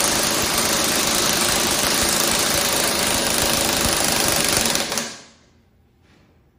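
Hans 86110 3/4-inch drive twin-hammer air impact wrench hammering steadily against a torque tester, stopping about five seconds in. This is a timed torque test: the wrench is held on the tester as torque builds.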